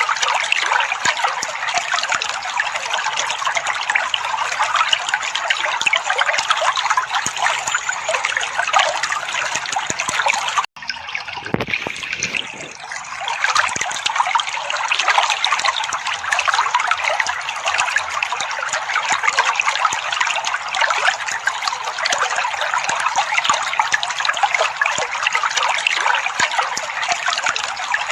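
Trickling, splashing water, running steadily. About ten seconds in it cuts off for an instant, is quieter for a couple of seconds, then comes back as before, like a looped recording.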